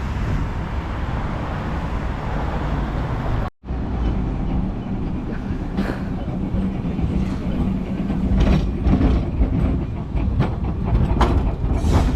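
A vehicle running, a steady low rumble heard on board, with a brief cut about a third of the way in; after it, the rumble goes on with scattered rattles and clicks.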